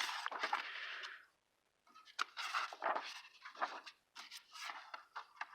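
Paper rustling and crinkling in handled bursts, with small clicks: booklets and papers being leafed through and shuffled.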